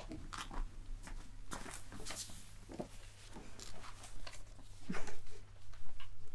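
Scattered rustles and light knocks of people shifting in chairs and handling papers as one more person sits down, over a steady low hum.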